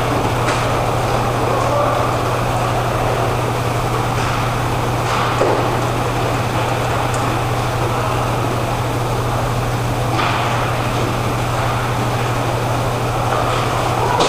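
Indoor roller hockey rink ambience: a steady low hum and rumble, with a few sharp knocks from sticks and puck about half a second, five seconds and ten seconds in.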